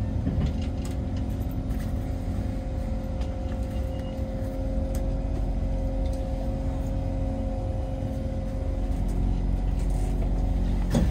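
Kawasaki Heavy Industries C151 MRT train: a steady low rumble with a continuous mid-pitched electrical hum that fades out about nine seconds in, and a few faint clicks.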